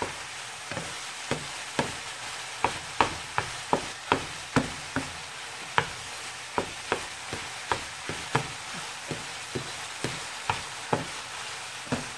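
Crumbled sausage sizzling in a frying pan while a utensil chops and stirs it, knocking against the pan about twice a second over the steady hiss of the frying.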